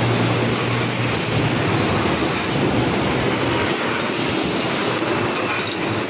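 Automatic 3D EPS panel wire mesh welding machine running: a loud, steady mechanical clatter with a low hum that fades out a little past halfway.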